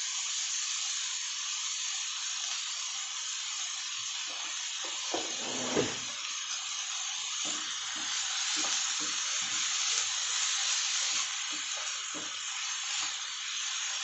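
Chopped onion, corn, carrot and capsicum sizzling in hot oil in a kadai, a steady frying hiss. From about four seconds in, a wooden spatula stirs through them with a run of short scrapes and knocks.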